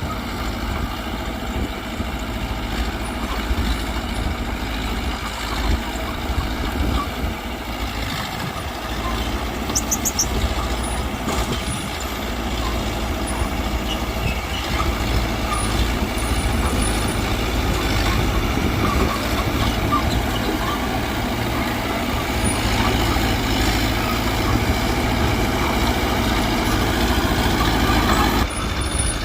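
Mitsubishi BD2G bulldozer's diesel engine running steadily under load as the dozer works. The sound changes abruptly about a second before the end.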